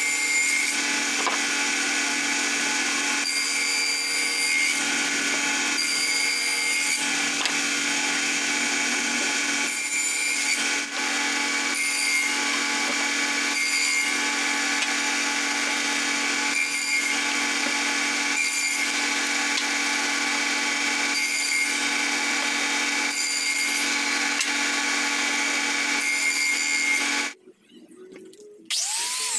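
Table saw running steadily while cutting a wooden board, with louder surges every second or two as the wood is fed through the blade. It cuts off abruptly near the end, and an angle grinder with a sanding disc starts up just before the close.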